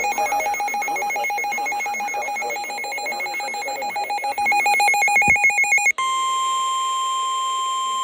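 Weather-radio alert tones. For about six seconds a rapidly pulsing, warbling electronic alert sounds. Then it switches abruptly to one steady high tone, the 1050 Hz warning alarm tone that NOAA Weather Radio sends ahead of a warning message.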